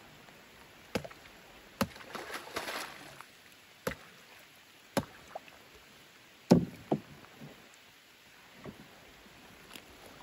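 Scattered sharp knocks on a small wooden rowboat as a net is hauled in over the side, with a short splashing rustle about two seconds in; the loudest knock comes about six and a half seconds in.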